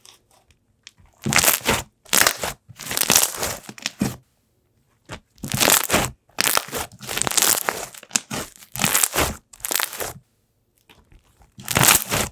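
Hands squishing and pressing slime: about ten separate squishing bursts, each under a second or so, with short silent gaps between them.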